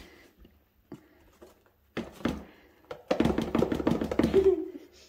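A fork clicking and scraping against a plastic mixing bowl as bun dough is stirred, with dry bun mix tipped in from a cardboard box. There is a single tap about two seconds in, then a quick run of clicks lasting about a second and a half.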